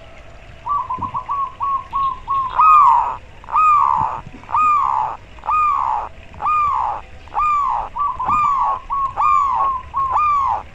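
Zebra dove (perkutut) calling: a quick run of short coos about a second in, then a series of about nine longer arched 'koar' calls, roughly one a second, with a few short coos slipped in between near the end.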